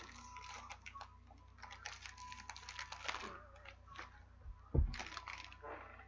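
A trading card pack being opened and the cards handled: light clicks and crinkling of the wrapper and cards, with a dull thump about five seconds in.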